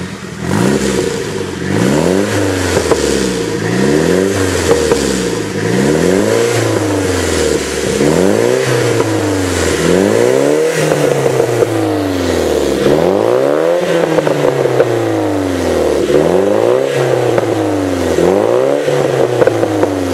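Nissan 200SX S14a's turbocharged SR20DET four-cylinder engine heard at an aftermarket exhaust with a large single tip. It is revved over and over from idle, and each blip rises and falls back, roughly once a second.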